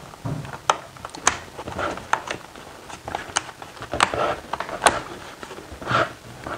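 Plastic side cover being pressed and snapped onto the battery pod of a Schuberth C4 helmet: a handful of sharp clicks scattered among soft handling and rubbing noise.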